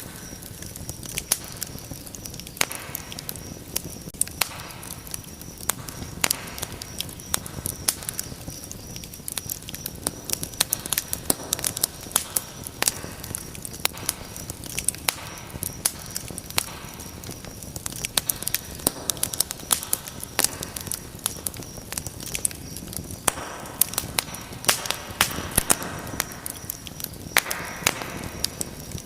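Wood fire crackling in a fireplace: a steady low rush of flames with many irregular sharp pops and snaps.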